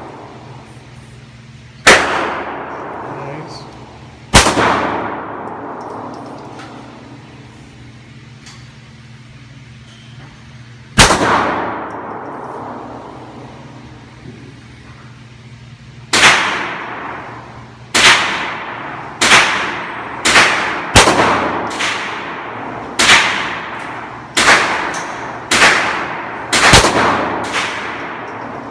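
Sig Sauer Mosquito .22 LR pistol being fired, each shot a sharp crack with an echoing tail. Three single shots a few seconds apart, then, after a pause, a quicker string of about fifteen shots at roughly one or two a second.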